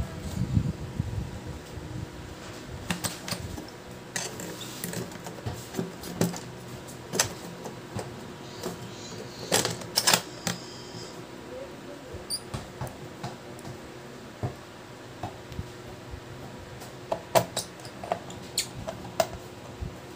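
Scattered clicks, taps and knocks of hands and tools handling a Lenovo IdeaPad laptop's plastic bottom case, with a louder cluster of knocks about ten seconds in, over a faint steady hum.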